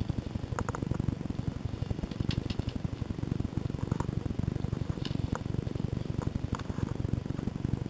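Scattered sharp cracks of airsoft gunfire, a quick double about half a second in and then single shots every second or so, over a steady low rumble.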